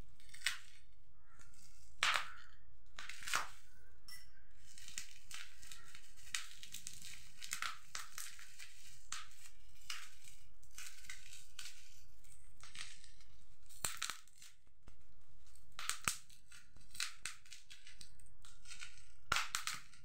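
Plastic bubble wrap crinkling and crackling as it is pulled open by hand, with a dense run of crinkling through the middle and several sharp crackles scattered through.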